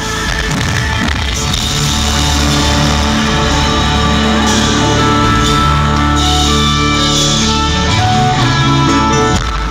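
Loud rock band music: electric guitar playing over drums.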